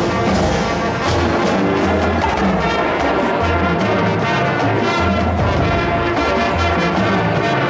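High school marching band playing: brass carrying sustained chords over a moving bass line, with a few drum strikes in the first second or two.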